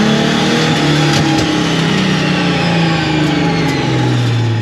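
Car engine running at low, light revs inside the cabin of a stripped-out autocross car as it rolls slowly. The pitch holds roughly level with small wobbles, then sinks near the end as the revs drop off.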